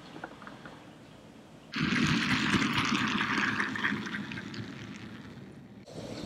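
OO gauge model diesel locomotive running past close by on its track, its motor and wheels making an even whirring noise. The sound starts suddenly about two seconds in, fades gradually and cuts off near the end.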